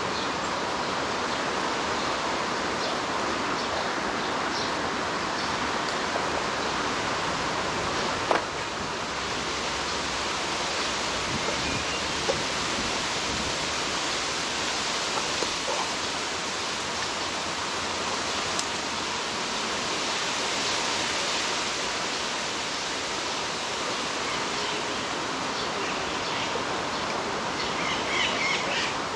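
Steady rushing outdoor noise, like flowing water, with one sharp click about eight seconds in and a few faint bird chirps near the end.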